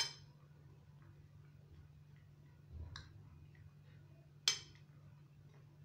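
Metal spoon clinking against a plate three times while stirring chopped vegetables: once at the start, once about three seconds in and once about four and a half seconds in. A faint steady low hum runs underneath.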